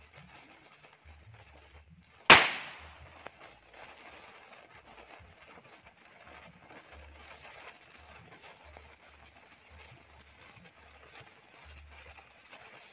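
A firecracker goes off with one sharp, loud bang about two seconds in. After it comes a faint, steady fizzing from a burning firework fuse throwing sparks as it creeps toward a pile of unlit firecrackers.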